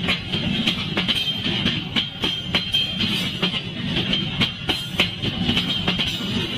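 Freight train of tarpaulin-covered wagons rolling past, wheels clicking over the rail joints over a steady rumble, with music playing as well.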